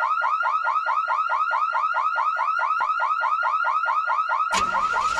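Car alarm sounding: a fast, evenly repeating warbling chirp, about seven a second. Near the end the song's music comes in underneath with a bass line while the alarm carries on.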